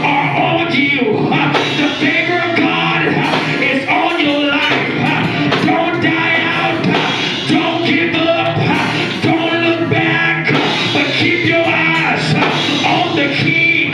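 Loud gospel praise-break music with singing voices over it.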